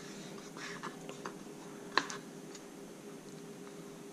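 Fillet knife blade tapping and clicking on a plastic cutting board while trimming a crappie fillet: a few light ticks in the first second and a half, then one sharper tap about two seconds in.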